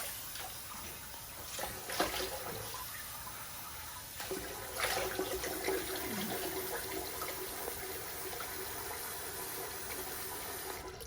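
Bathroom sink tap running steadily, with splashing. A faint steady hum joins about four seconds in, and the flow cuts off abruptly at the end as the tap is turned off.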